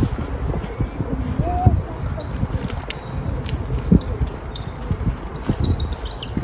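Small birds twittering in short high chirps over a steady low rumble with scattered dull knocks.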